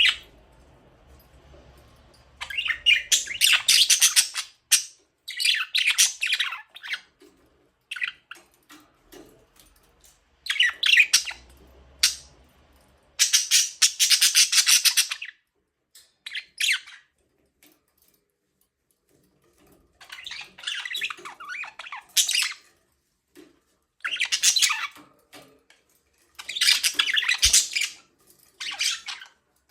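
Budgerigars chirping and chattering in bursts of a second or two, separated by short pauses, with a longer lull in the middle.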